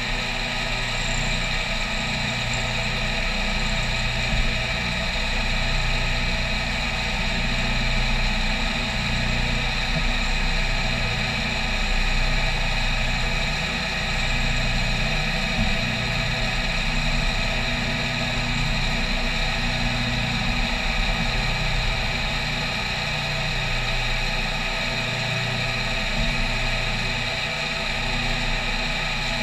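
CNC milling machine cutting an aluminium plate with an end mill on an adaptive clearing toolpath: a steady spindle and cutting whine, with the low cutting noise swelling and easing in a regular cycle every second or two.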